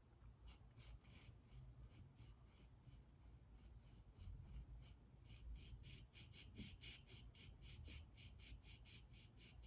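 Steel sickle scaler blade being stroked up and down on a water-lubricated sharpening stone: a faint run of short scraping strokes, about three a second, getting quicker and louder about halfway through.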